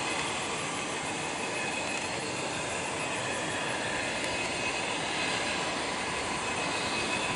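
Turbine engine of a Bell TH-57 Sea Ranger helicopter running on the ground: a steady high whine over rushing engine and rotor noise, growing a little louder near the end.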